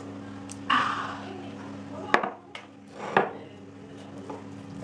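Crockery clinking: small ceramic gravy bowls knocking against plates as the gravy is tipped onto rice, with two loud, sharp clinks about two and three seconds in, over a steady low hum.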